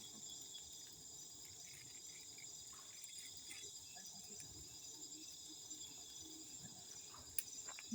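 Crickets chirping in a steady, continuous high-pitched chorus, with a single sharp click near the end.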